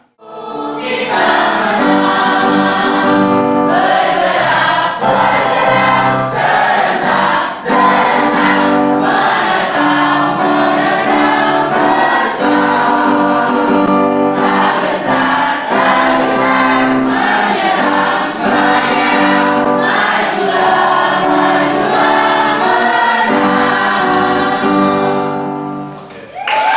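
A class of students singing an Indonesian national song together, accompanied on an electronic keyboard. The singing dies away near the end.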